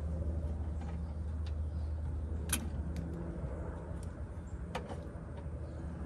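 A few light clicks and taps from a test light and its wire being handled around an engine bay, over a steady low hum.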